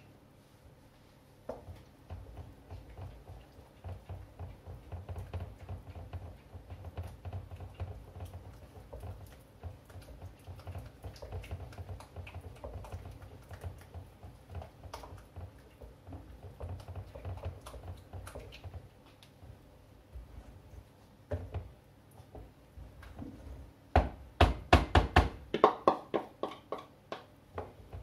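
A spoon stirring thick rice pudding in a steel saucepan, a soft steady churning and scraping, as beaten egg yolks are stirred in. About 24 seconds in, a quick run of about ten sharp knocks of the spoon against the pot and bowl.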